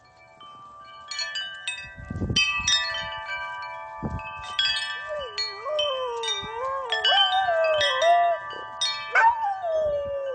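Metal tube wind chimes ring as a golden retriever knocks them again and again, with a couple of dull thumps in the first half. From about five seconds in the dog howls along in a wavering pitch over the ringing chimes.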